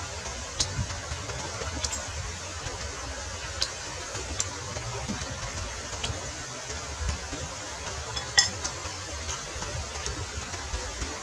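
Steady rushing background noise of a river with a fluctuating low rumble, broken by a few light clicks of a metal spoon against a bowl; the loudest is a brief rattle about eight seconds in.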